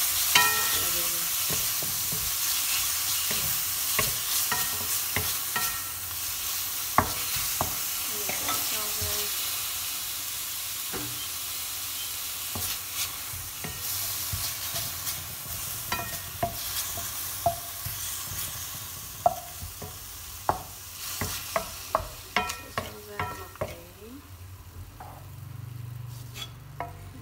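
Thin slices of beef sizzling in a stainless steel frying pan while a wooden spatula stirs and scrapes them, with frequent sharp knocks of the spatula against the pan that ring briefly. The sizzle fades toward the end.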